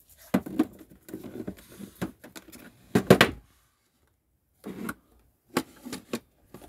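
A toy box and other objects being handled and set down on a shelf: a run of knocks, scrapes and rustles, the loudest knock about three seconds in.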